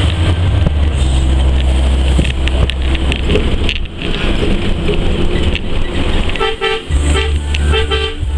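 Bus running with steady engine and road noise, and a vehicle horn tooting in a quick series of short honks near the end.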